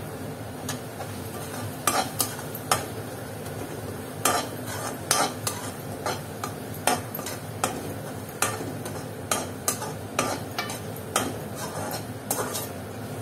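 A steel spoon stirring and scraping soft, cooked-down tomatoes in a stainless steel kadhai. Irregular sharp clinks of metal on metal come about one or two a second.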